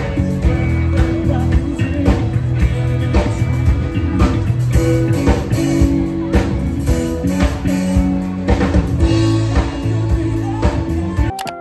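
Background rock song with singing, guitar and a steady drum beat. It cuts off suddenly near the end, leaving quieter, sparse music.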